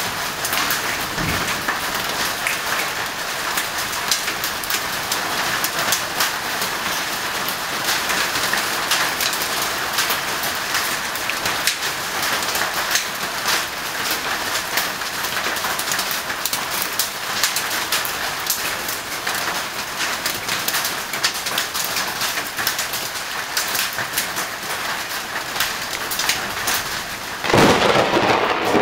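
Thunderstorm rain falling steadily, with many sharp drop hits throughout. Near the end a sudden, louder crash of thunder breaks in.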